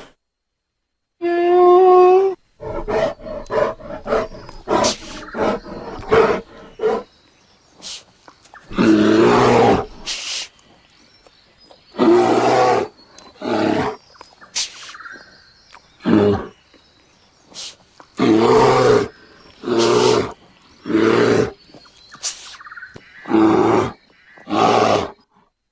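Bear vocalisations: a short pitched moan, then a run of quick grunts, then a series of about ten loud growling roars, each lasting about a second, with short pauses between them.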